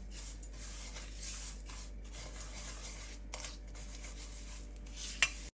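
Silicone spatula stirring and scraping broken vermicelli around a nonstick frying pan as it fries in ghee: a steady rustling scrape, with a sharp click near the end before the sound cuts off suddenly.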